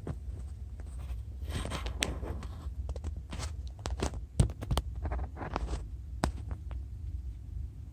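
Rustling, scraping and irregular clicks of hands working plastic hoses and fittings in a tight cabinet, with one sharper knock about halfway, over a steady low rumble.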